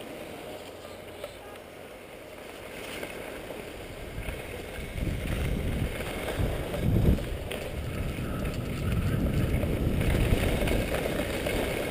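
Wind rushing over the microphone and skis hissing and scraping over packed snow during a downhill ski run, a low rumbling haze that grows louder about four seconds in as speed picks up.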